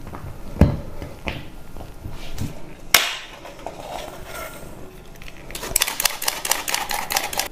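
A couple of sharp knocks on a glass mixing bowl, then a metal flour sifter clicking rapidly as its mechanism is worked to sift flour into the batter.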